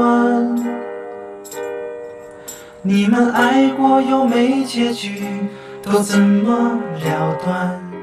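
A man singing a Mandarin pop song into a microphone over instrumental backing. He holds a note, stops for about two seconds while the backing plays on, then sings on.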